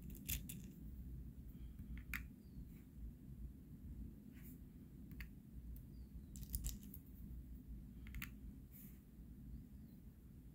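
H&N Crow Magnum .22 lead airgun pellets clicking as they are picked out of their metal tin and set on and lifted off a digital pocket scale: scattered small sharp clicks a second or two apart, some in quick pairs, over a faint low hum.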